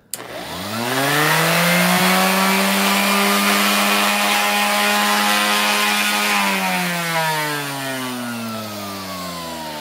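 Porter-Cable 333 5-inch random orbit sander with a 2.4-amp motor switched on: it spins up over about a second, runs steadily at full speed, then is switched off about six and a half seconds in and winds down with falling pitch. It runs loud and not smooth, with much of the noise from its dust-collection canister rattling around.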